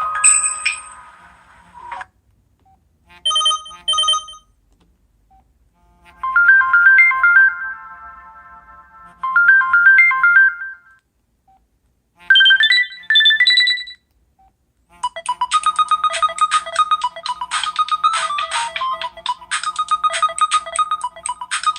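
Default ringtones of an LG Rhythm AX585 mobile phone, played one after another from its speaker. First come two short blips, then a short melody played twice, then a quick rising run of notes. About two-thirds of the way in, a fast, busy ringtone starts and keeps going.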